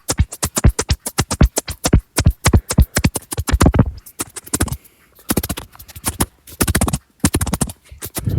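Something rubbed very fast directly on a microphone: a rapid run of short, loud scratchy strokes, several a second, with brief pauses about five and seven seconds in.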